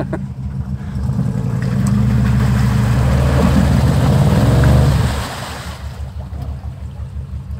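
Stuck Chevy 4x4's engine revving hard for about four seconds as it tries to reverse out of a mud hole, its spinning tyres churning mud and water. The revs drop back to idle about five seconds in; the truck stays stuck.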